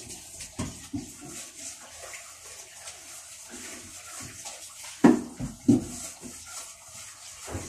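Water running from a kitchen tap into the sink while dishes are washed, with two short loud knocks about five seconds in.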